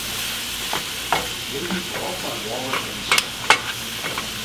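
Diced apples frying in a pan with a steady soft sizzle, while a utensil stirs with sharp clinks and scrapes, several of them in the second half.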